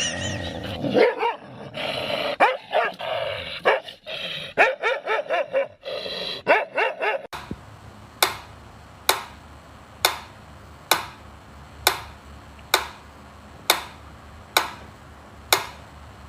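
A dog barking, yipping and whining in quick, rising-and-falling calls. About seven seconds in, this cuts off and is followed by a short, sharp sound that repeats about once a second.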